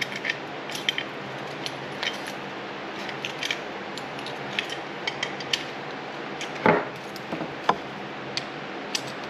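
Small metal parts clicking and clinking as a nut, lock washer and washer are screwed by hand onto the end of an RB26 throttle body shaft. There is one louder, longer scrape about two-thirds of the way through.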